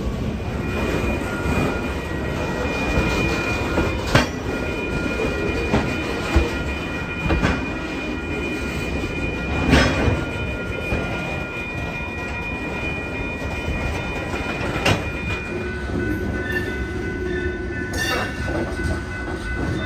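Freight train cars rolling past at close range: a steady rumble of steel wheels on rail with sharp clanks every few seconds, and a thin, steady high-pitched wheel squeal whose pitch shifts near the end.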